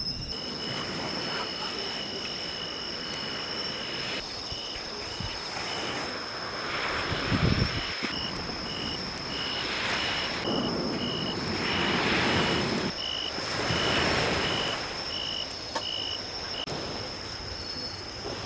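Insects trilling steadily at two high pitches, the lower one pulsing in short regular beats in the second half. Under them, waves wash onto the beach in swells every couple of seconds, with a brief low rumble about seven seconds in.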